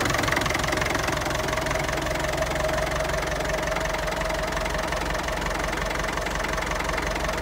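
Ferguson TEF-20 tractor's four-cylinder diesel engine idling steadily, warming up a minute or so after a cold start.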